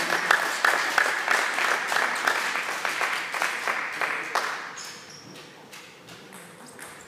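Spectators clapping after a table tennis rally, dying away after about four and a half seconds, leaving the quieter hall with a few isolated taps.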